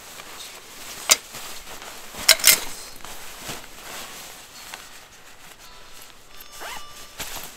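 Sleeping-bag zipper pulled in short, quick zips: one about a second in and a quick pair a little past two seconds, with softer handling noise between.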